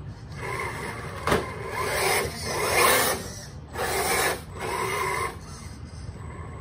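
Vanquish VS4-10 Ultra RC rock crawler driving on a concrete floor in short spurts of throttle: its electric motor and geared drivetrain whir and grind about five times, with a sharp click about a second in.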